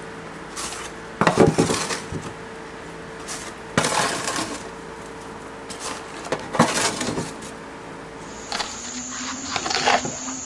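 Metal utensils and containers clinking and clattering in a few short bursts as ground coffee is packed into small bags.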